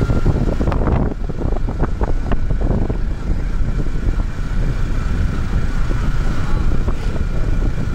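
Yamaha R15M sport bike's single-cylinder engine running at a steady road speed, with wind noise on the rider's microphone and a thin steady whine over it. A few short clicks in the first couple of seconds.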